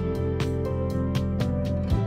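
Background music: held notes over a steady beat of about four ticks a second.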